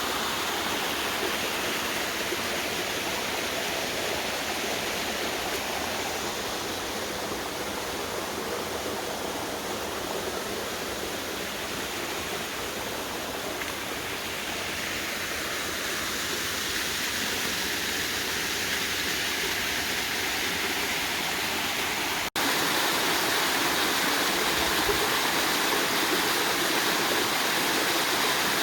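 Waterfall and creek water rushing steadily. About 22 seconds in it breaks off for an instant and comes back slightly louder.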